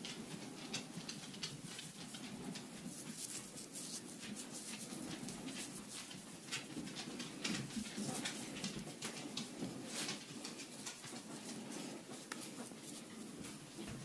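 Fingers rubbing and kneading the skin of the neck and working through the hair at the base of the skull, giving many irregular soft crackles and rustles.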